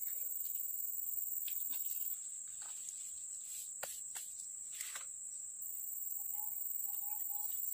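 Steady high-pitched drone of forest insects. The highest part of it drops away for a few seconds in the middle. A few light clicks and rustles fall about three to five seconds in.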